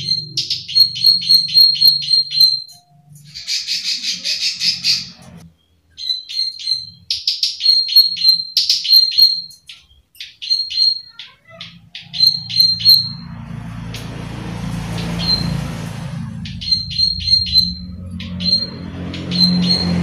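Plain prinia (prenjak sawah) giving its 'klik klik' call: quick runs of sharp high clicking notes, about four a second, broken by short pauses, with a buzzy rattling run about four seconds in. From about twelve seconds a low steady rumble of background noise runs under the calls.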